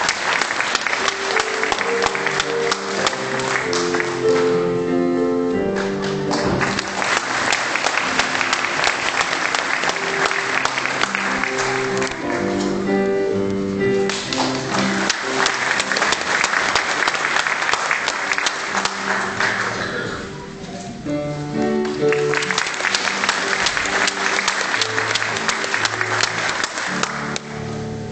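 Audience applause in four waves, each a few seconds long, with short lulls between them. Piano music plays underneath and is heard clearly in the lulls.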